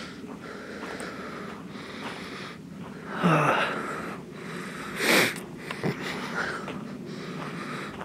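A person breathing close to the microphone: a loud exhale with a falling voiced pitch about three seconds in, then a sharp sniff about five seconds in and a smaller one just after.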